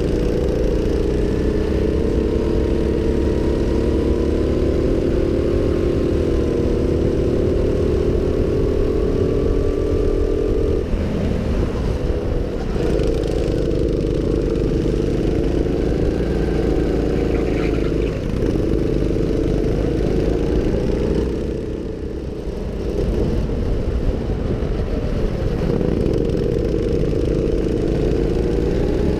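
Go-kart engine running hard at speed, heard from on board with wind rumbling on the microphone. The engine note falls away and picks up again a few times as the throttle is lifted and reapplied through the bends, most deeply about two-thirds of the way through.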